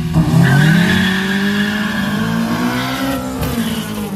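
Drag cars launching hard off the start line: the engine note climbs steeply under full throttle over a high tyre squeal, then drops for a gear change about three seconds in.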